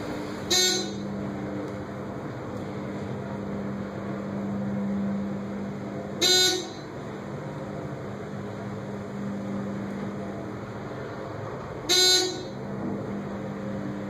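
ThyssenKrupp hydraulic elevator's dry-type pump motor humming steadily while the car travels. Three short electronic chimes sound about six seconds apart.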